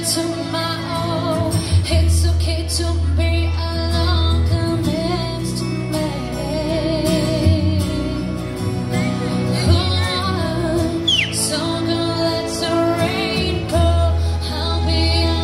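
A woman singing pop live into a microphone, with instrumental accompaniment played through PA speakers.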